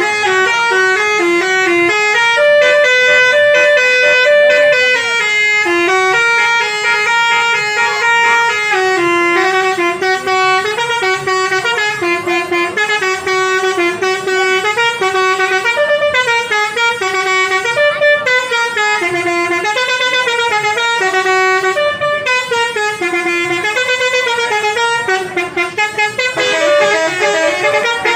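Bus basuri musical air horn playing a continuous tune, its notes stepping up and down. Near the end the notes come thicker and overlap.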